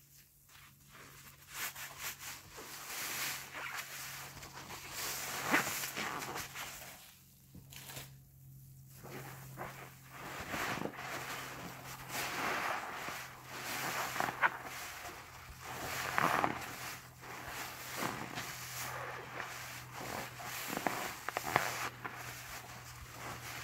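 A yellow HDX sponge soaked in thick suds, squeezed and worked by hand, giving wet squishing and popping foam sounds in uneven bursts, with a short lull about seven seconds in.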